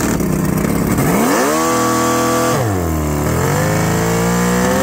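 Mercury 150 hp inline-six two-stroke outboard revving: it climbs sharply about a second in, holds high for about a second, drops back, then climbs again more slowly and holds. The engine is down on power and not reaching its full RPM.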